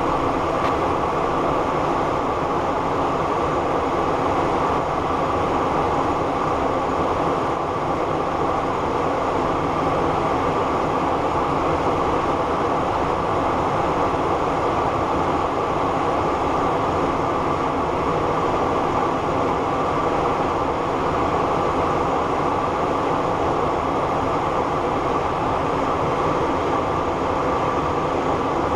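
Steady in-flight cockpit noise of a Cessna Citation Encore twin-engine business jet: an even, unchanging rush of airflow and engine noise.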